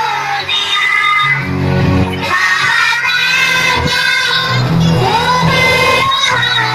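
Children's choir singing in unison over a backing track, sustained sung notes rising and falling.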